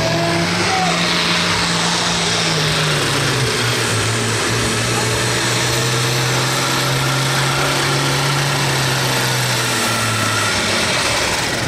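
International 1066 pulling tractor's diesel engine running at full power while pulling the sled down the track; its steady note drops a little in pitch about three and a half seconds in.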